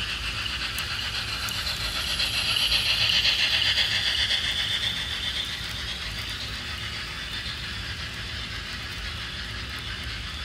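HO scale model steam locomotive hauling a rake of LS Models CIWL sleeping cars past on the track, a steady rattle of wheels on rail. It grows louder about two to five seconds in as the train passes close, then settles back.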